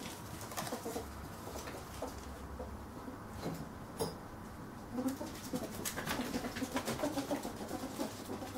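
Ferret dooking: quick, soft clucking chuckles of a ferret at excited play, coming thick and fast from about halfway through. Light clicks and taps of paws and a small toy on the wooden floor run underneath.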